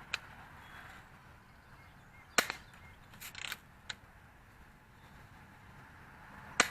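Daisy Red Ryder lever-action BB gun fired twice, about four seconds apart. Each sharp snap of the shot is followed by the clacking of the cocking lever being worked.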